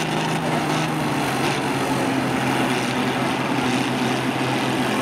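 Engines of John Deere combines running hard as the machines push against each other: a steady engine drone with a low hum, no crashes.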